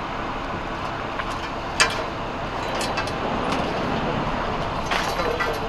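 Steady drone of an idling vehicle engine with a haze of road noise. A sharp clank comes about two seconds in, with a few lighter knocks near the end.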